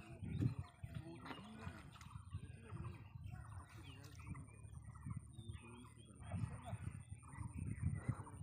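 Birds chirping and calling, faint, with many short varied calls.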